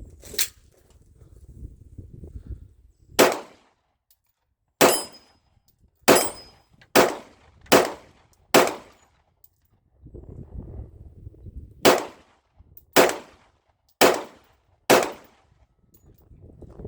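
Pistol shots from a CZ P-10 SC subcompact handgun, fired one at a time at a steady pace: about eleven shots, a string of seven, a short pause, then four more.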